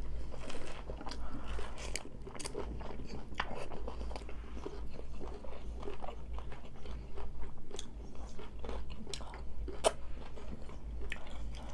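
Close-up eating sounds: crisp hard-shell tacos being bitten and chewed, with irregular crunches and crackles throughout and two sharper bites, about three seconds in and near the end.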